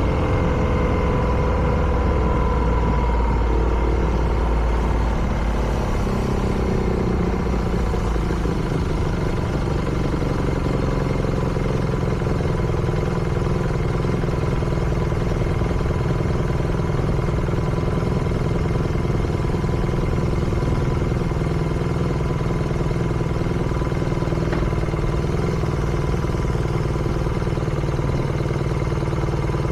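BMW R nineT's air/oil-cooled boxer twin running, its pitch falling over the first eight seconds or so as revs drop, then holding steady at a low, even speed.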